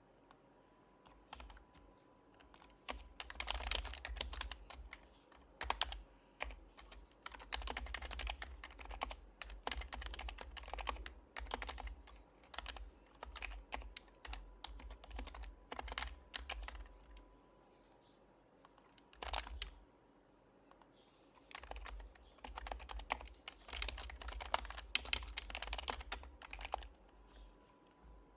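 Typing on an HHKB Professional HYBRID Type-S keyboard, whose silenced Topre switches give soft, muted thocks: fast runs of keystrokes, a pause of a few seconds with a single stroke, then another run.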